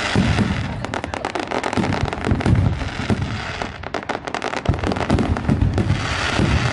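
Fireworks and firecrackers going off in a dense barrage: a rapid, continuous run of overlapping cracks and bangs.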